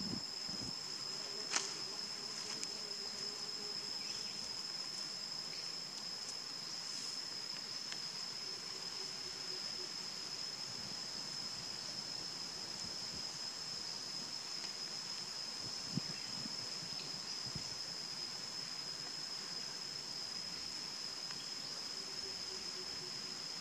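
Steady, high-pitched insect drone, one unbroken tone throughout, over faint background hiss. Two brief sharp clicks stand out, one about a second and a half in and one about sixteen seconds in.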